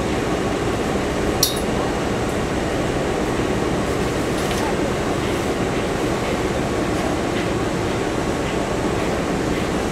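Hankyu Kobe Line electric train running, heard from inside the carriage as a steady rumble of running noise, with one sharp click about a second and a half in.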